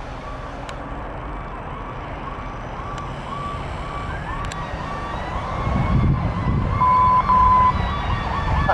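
Approaching fire engine's siren sounding in quick repeating pulses, with a second, higher siren tone slowly rising from about halfway through. The truck's engine grows louder over the last few seconds as it nears, with a short steady tone near the end.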